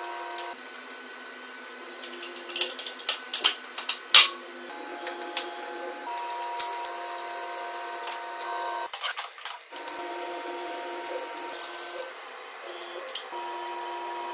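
Soft background music with held notes, over scattered sharp metallic clicks and taps from hand tools and Honda CG125 engine parts being fitted together. A quick run of clicks comes about nine seconds in, as a ratchet works on the cylinder head.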